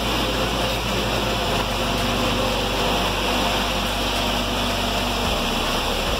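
Steady rushing ventilation noise with a low hum underneath, the constant air-handling sound of a building mechanical room.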